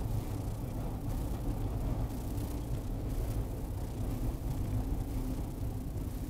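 Steady car road and engine rumble picked up inside the car by a G1W dashcam's built-in microphone, with a hiss over it and a few faint crackles: the crackling and hissing fault of this recorder's audio.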